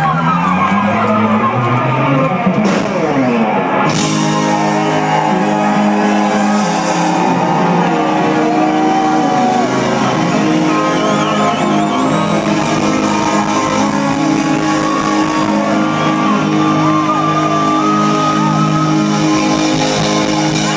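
Rock band playing live through a stage PA: electric guitars and keyboards, with sliding notes in the first few seconds before settling into steady held chords.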